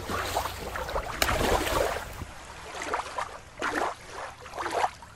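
Shallow water lapping and sloshing at the edge of a rocky shore, with a sharp click a little over a second in. About two seconds in the sound switches to a thinner run of irregular water swishes.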